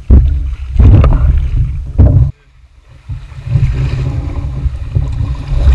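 Wind buffeting the microphone of an action camera mounted on a kayak, a heavy uneven rumble, with several sharp knocks as the kayak is lifted and carried. The rumble drops out briefly midway, then returns.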